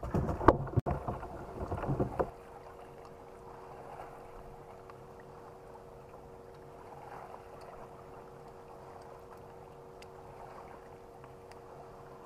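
About two seconds of loud irregular knocks and rustling, then a boat's electric trolling motor starts and hums steadily on one even two-note pitch.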